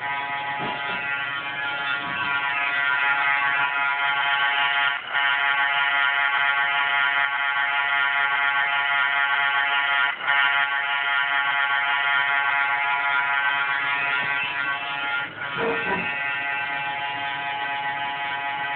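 Diesel locomotive horn sound from an MRC sound decoder in an Atlas CSX NRE Genset model, played through the model's speaker. It is held in long blasts about five seconds each with brief breaks between them, and grows louder about two seconds in.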